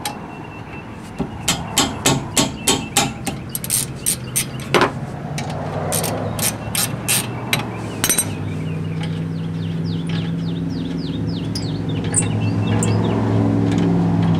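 Socket ratchet clicking in a quick run, about three clicks a second, as the rear brake caliper's 14 mm caliper-to-bracket bolts are backed out. A couple of single clicks follow, then a steady low hum sets in about halfway through, with birds chirping.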